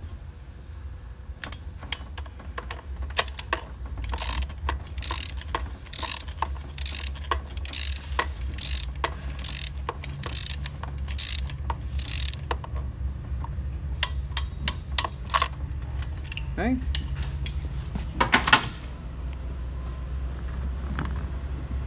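A ratchet wrench clicking through a run of short strokes on a spark plug socket, tightening a new spark plug into a 2.7 V6 cylinder head, over a steady low hum. A brief louder clatter comes near the end.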